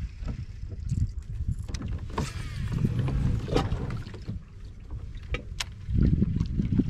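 Water sloshing against a kayak with wind buffeting the microphone, a rushing swish about two seconds in, and a few sharp clicks.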